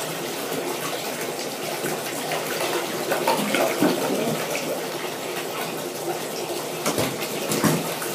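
Water in a bathtub sloshing and splashing as a mini dachshund puppy paddles, over a steady rush of water. A few sharper splashes come near the end.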